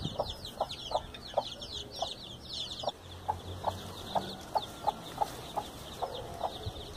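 Broody hen clucking, a short low cluck about two or three times a second, while her chicks peep in high falling cheeps that are busiest in the first three seconds.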